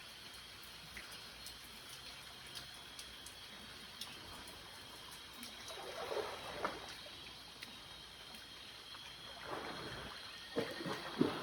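Faint steady chirring of night insects. Two clusters of short bursts of handling noise come through it, about six seconds in and again near the end, the last being the loudest.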